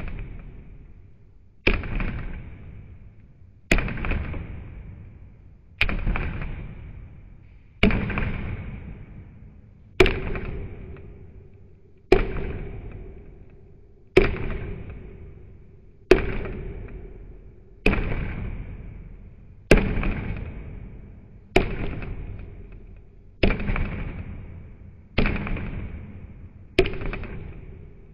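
A heavy wooden club pounding small green vegetables on a thick round wooden chopping block: a hard thud about every two seconds, each one dying away slowly before the next.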